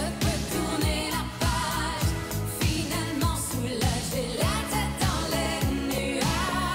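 1980s-style pop song: a sung vocal line over a synth backing with deep electronic drum hits that drop in pitch, about two a second.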